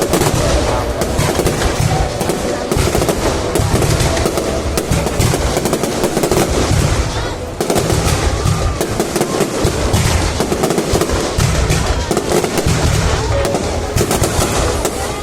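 Aerial fireworks display bursting continuously, a dense barrage of bangs and crackling with a short lull about halfway through.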